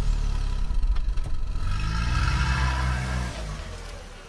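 A dubbed-in engine sound effect: a vehicle engine running and revving, its pitch rising and falling, then fading away near the end.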